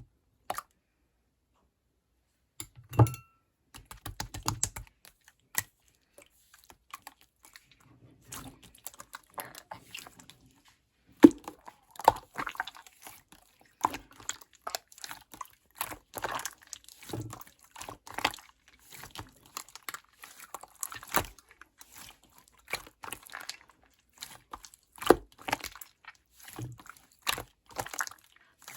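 Slime being squished, pressed and stretched by hand, making irregular sticky clicks and crackling pops of trapped air. It starts a couple of seconds in.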